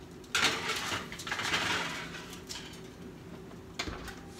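Metal baking sheet pushed into the oven, scraping over the wire rack, then the oven door shutting with a short knock near the end.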